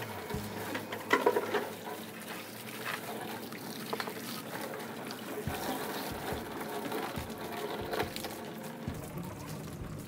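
Water from a garden hose spraying and splashing inside an old refrigerator as it is washed out, with a few sharp knocks, the loudest about a second in.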